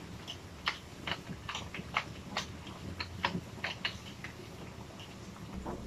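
Wooden pepper mill being twisted by hand, crushing peppercorns with a run of short, irregular crunching clicks.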